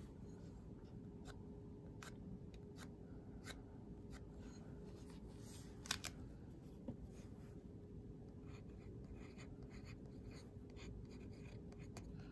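Faint strokes of a watercolour brush on paper over a steady low room hum, with scattered small ticks and a couple of sharper clicks about six seconds in.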